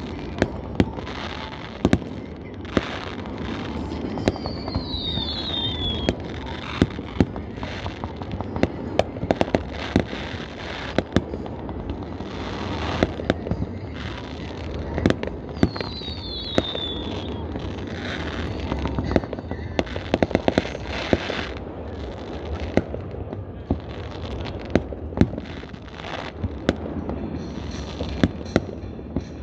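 Consumer fireworks display going off: a rapid, irregular series of sharp bangs and pops from launches and bursting shells over a continuous rumble. A short falling whistle is heard twice, about four and about fifteen seconds in.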